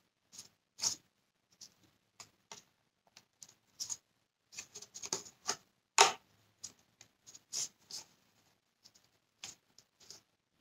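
Irregular small plastic clicks and snaps as rubber domes are pressed into the plastic plate of a Dyson Cinetic Big Ball cyclone unit by hand. The loudest snap comes about six seconds in.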